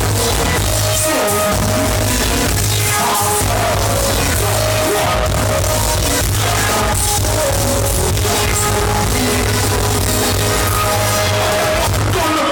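Live reggae-dancehall band music played loud through a concert sound system, with a heavy pulsing bass and a singer's voice over it.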